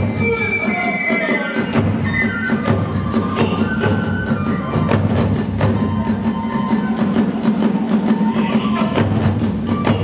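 Kagura accompaniment: a fast, even run of drum and small-cymbal strikes, about four or five a second, under a high flute melody.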